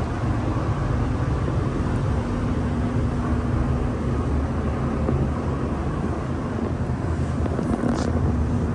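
Spray booth ventilation fans running: a steady rush of air noise, heaviest in the low end, with a constant low hum.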